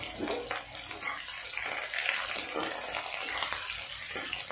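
Garlic, onion and green and dry chillies sizzling in hot oil in a metal kadhai, with a metal spatula scraping and stirring through them in short strokes.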